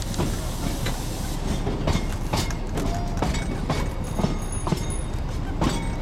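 Darjeeling Himalayan Railway narrow-gauge train running, heard from inside a carriage at an open window: a steady rumble of the wheels with frequent irregular clanks and knocks from the wheels and couplings.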